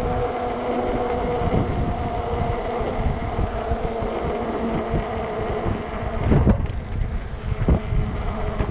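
Electric hub motor of a 48 V fat-tire e-bike whining steadily under way, with wind buffeting the microphone in a low rumble. Two short thumps stand out in the last few seconds.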